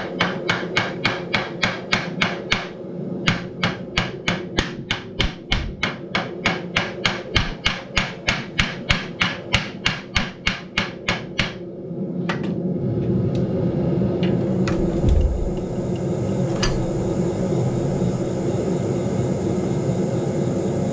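Blacksmith's hammer striking steel on the anvil in a steady rhythm, about three ringing blows a second, with a brief pause about three seconds in, stopping about twelve seconds in. Under and after the hammering a steady hum runs on, with a few light clicks.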